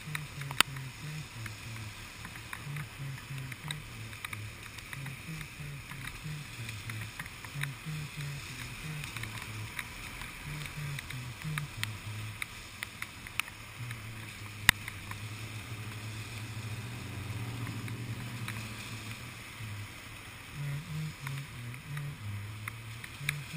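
Kawasaki Ninja sport bike's inline-four engine idling at a standstill, with hiss from traffic on the wet road and scattered sharp ticks of raindrops hitting the camera. The low engine hum grows steadier and louder about 16 to 19 seconds in.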